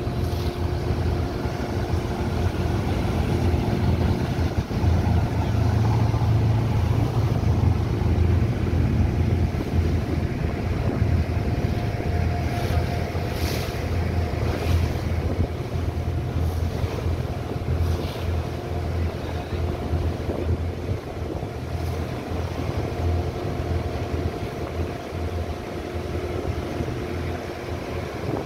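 Boat engine running steadily, a low drone with a steady hum above it, with wind on the microphone and water washing past the hull. A few short hissing gusts come about halfway through.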